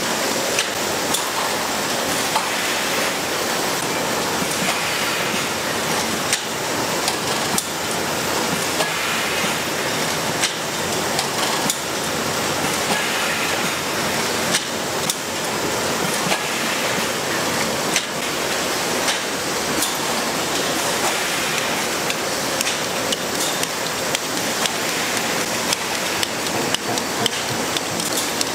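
Ice cream stick-bar production line running: a steady hiss of machinery with frequent, irregular sharp clacks.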